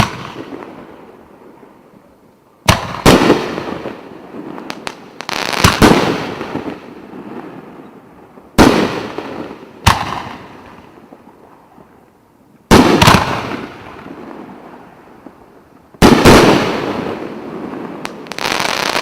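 Consumer fireworks battery (cake) firing: loud, sharp shell bursts every few seconds, some in quick pairs, each trailing off in a long echo.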